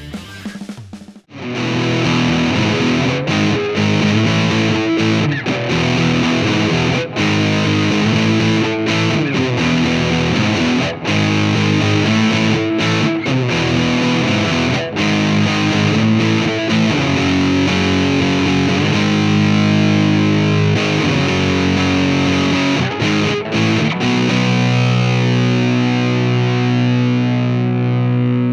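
Squier Affinity Telecaster electric guitar played through a Marshall MG30 amp with a Rat distortion pedal, heavily distorted riffing and chords with short breaks between phrases. The playing starts after a brief gap about a second in and settles into a single held, ringing chord for the last few seconds.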